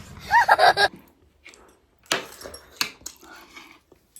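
A short high whine just under a second in, then a few light clicks and scrapes of steel chopsticks against a plate or bowl while eating.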